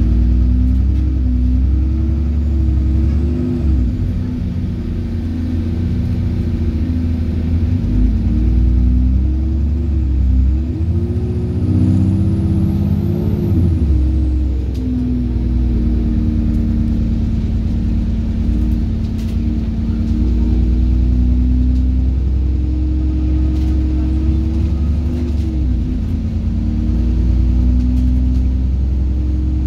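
ADL Trident 2 double-decker bus's diesel engine heard from inside the lower-deck cabin. It hums loud and low, its note rising and falling several times as the bus accelerates and eases off.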